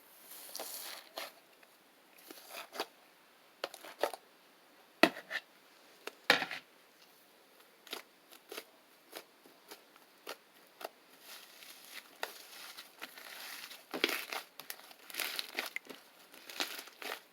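Shaving-foam slime being squished and stretched by hand: irregular crackling and small pops, with two louder snaps about five and six seconds in.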